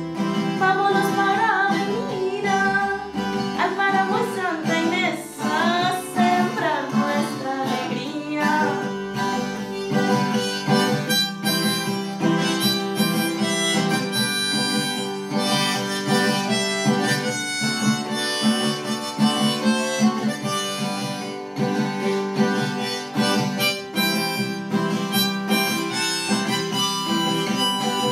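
Harmonica playing an instrumental melody over a strummed acoustic guitar, with no singing.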